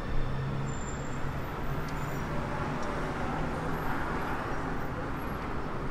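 Steady city road traffic noise: an even rush of vehicles with a low hum underneath, swelling slightly about four seconds in.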